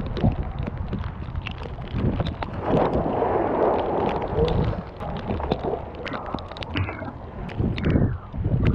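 Swimming-pool water splashing and sloshing as a person swims, heard from a camera at the water's surface, with a louder stretch of churning splashes from about two and a half to five seconds in.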